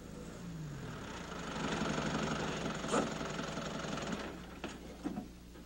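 A van's engine running as it drives up and pulls in, growing louder about a second in and dying away near the end, with a sharp click about halfway through.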